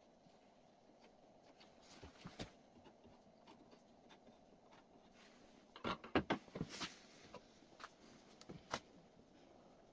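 Hand tools handled on a workbench: faint clicks and scratches as a marking knife and sliding bevel mark out a pine board. A quick run of louder taps and knocks comes about six seconds in, and one more near the end.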